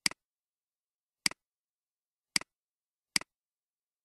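Computer mouse button clicks: four sharp clicks, each a quick double tick of press and release, at uneven gaps of about a second, with dead silence between them.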